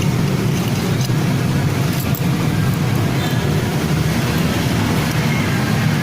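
A steady low rumble of motor noise, with a few faint light clicks about one and two seconds in.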